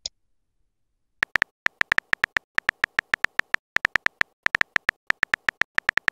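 Phone on-screen keyboard tap clicks: a rapid, irregular run of short, sharp key clicks, about four to six a second, as a message is typed letter by letter. They start about a second in, after a very short high blip at the start.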